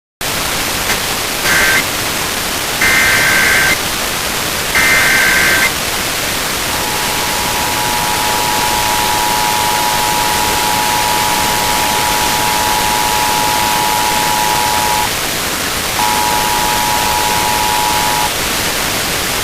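Emergency Alert System test received on a broadcast radio through heavy static. It opens with the clipped tail of one burst and then two more bursts of the SAME header, the warbling two-tone digital squawk. The steady two-tone EAS attention signal follows, drops out for about a second near the end and comes back briefly.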